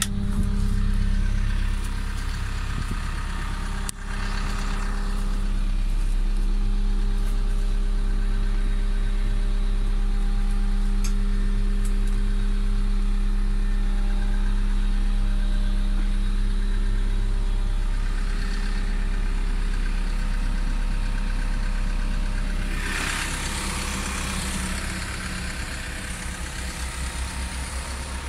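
Diesel engine of a Cat CW34 pneumatic-tyred roller idling steadily. There is a door-latch click right at the start. About three-quarters through, the engine sound opens up with added hiss and a more pulsing low drone.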